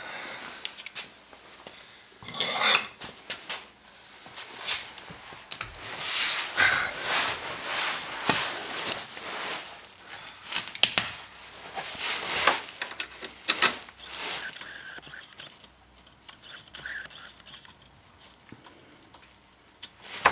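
Metal clinks and scrapes of a steel pinch bolt being worked into a MacPherson strut's hub carrier clamp, with tools handled, coming irregularly with the sharpest clicks about halfway through and quieter toward the end.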